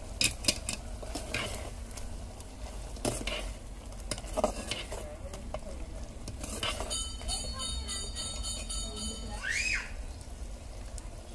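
Chicken curry being stirred in a metal pot with a metal utensil, with a few sharp clinks of the utensil against the pot.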